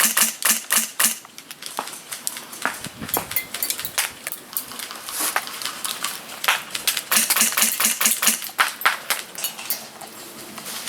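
Airsoft guns firing: irregular sharp clicks and snaps, some in quick runs, spread through the whole stretch.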